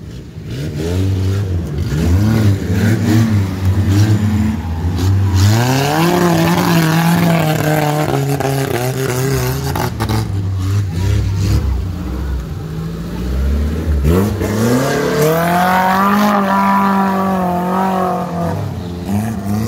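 A small 4x4 off-roader's engine revving hard as it pushes through deep mud. The revs climb twice, about six and about fifteen seconds in, hold high for a few seconds each time, then drop back.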